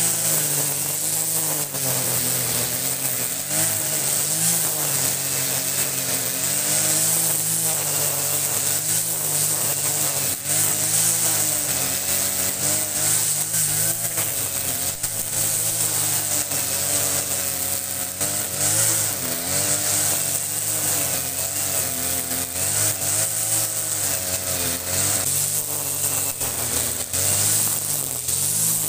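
Kawasaki TJ45 two-stroke brush cutter engine running at high speed while cutting overgrown grass. Its pitch dips and recovers over and over as the cutting head bites into the grass.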